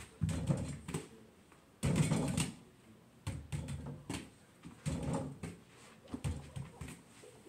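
Small ball knocking against a door-mounted mini basketball hoop and bouncing, with a few thuds about a second and a half apart.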